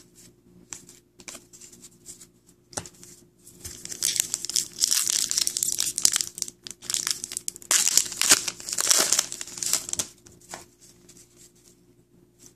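A hockey card pack's wrapper crinkling and tearing as it is opened, a dense run of crackling from about three and a half seconds in to about ten seconds in. A few light clicks and rustles of cards being handled come before it.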